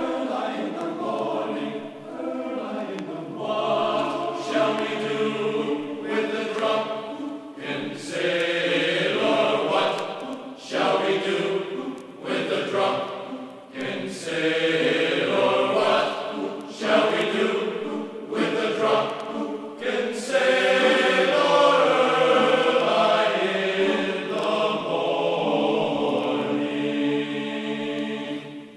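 Background music: a choir singing a sea shanty in phrases with short breaks between them.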